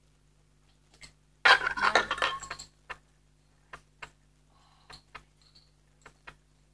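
Tableware and packaging being handled on a table: a loud clattering, rustling burst lasting about a second, then a handful of short, light clicks and clinks.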